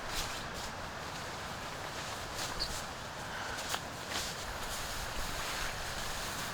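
Steady wind and sea noise at the shore, with a few light knocks and rustles scattered through it.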